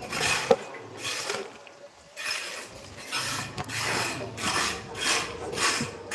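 A trowel scraping and scooping mortar in a plastic bucket: a run of short scraping strokes, about two a second, after a brief lull.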